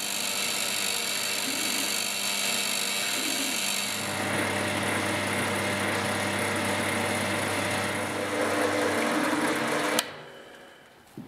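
Drill press running, its bit boring into wood. The sound shifts about four seconds in, and near the end it stops suddenly with a click and fades away.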